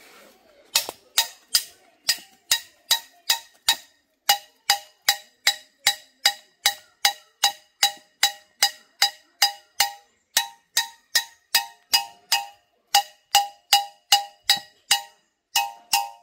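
Background music: a short bell-like percussion note struck over and over in a steady beat of about two and a half strikes a second, with dead silence between strikes. Near the end some strikes come in quick doubles.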